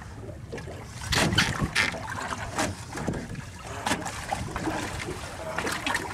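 Boat-at-sea ambience: wind on the microphone and water moving against the hull, with several short noisy bursts, the loudest a little over a second in.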